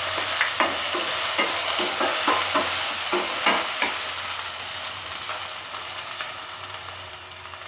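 Chopped garlic and onion sizzling in hot oil in a frying pan, stirred with a wooden spoon that knocks and scrapes against the pan about three times a second for the first four seconds. The stirring then stops and the sizzle fades toward the end.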